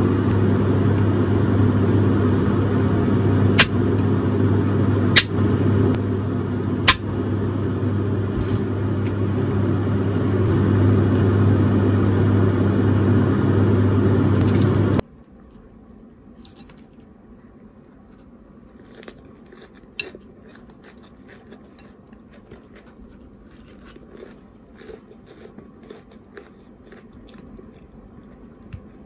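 A steady, loud motor hum, like a kitchen extractor fan, with three sharp clinks of tableware. The hum cuts off suddenly about halfway, leaving quiet with light taps of chopsticks and dishes.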